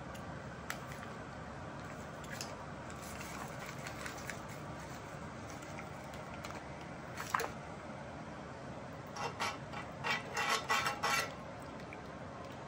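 A metal utensil clinking and scraping against a pan of reducing pan sauce over a steady hiss. There are scattered light clicks, one sharp ringing clink about seven seconds in, and a quick run of metal taps and scrapes near the end.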